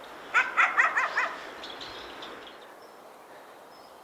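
A dog barking, about six short, quick barks within a second, followed by a few fainter ones.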